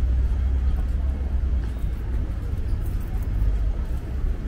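City street ambience: a steady low rumble of road traffic under a faint general hum of a busy pavement.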